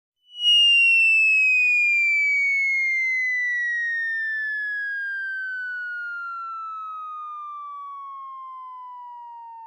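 A single synthetic whistle-like tone, an anime sound effect. It begins suddenly about a third of a second in, then slides slowly and smoothly down in pitch while fading gradually.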